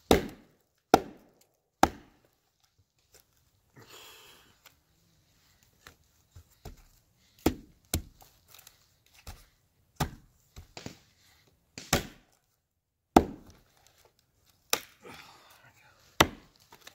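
Hatchet chopping and splitting a length of branch on a log: about ten sharp chops at irregular intervals, with quieter rustling of the wood between strikes.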